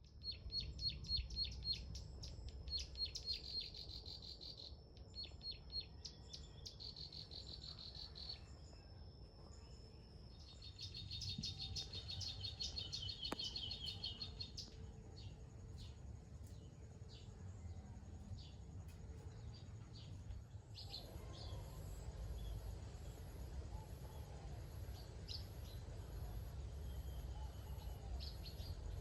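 Small songbirds chirping and singing: quick runs of repeated high chirps at the start, a fast rattling trill in the middle, then scattered single calls. A steady low rumble runs underneath.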